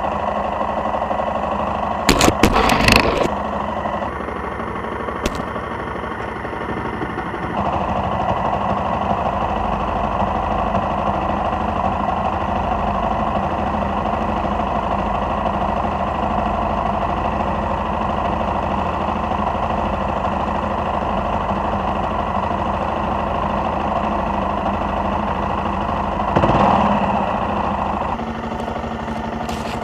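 Suzuki XF650 Freewind's single-cylinder engine running steadily, with a quick cluster of knocks and rattles about two seconds in and a brief louder swell near the end.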